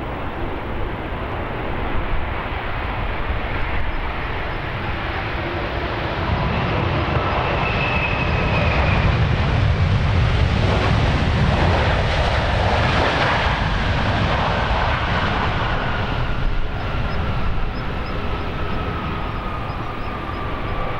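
Boeing 787-8 jet engines on landing approach, passing close by. The noise swells to its loudest about halfway through, then a whine slowly falls in pitch as the airliner moves away.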